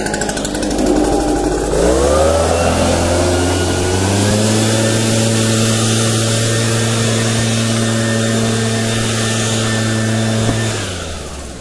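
Small engine revving up about two seconds in, held at a steady high speed for several seconds, then dropping off near the end.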